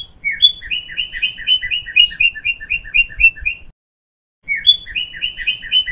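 A small songbird singing two phrases. Each phrase opens with a few notes and then moves into a quick run of repeated two-part notes, about four a second. The second phrase starts about four and a half seconds in, after a short pause.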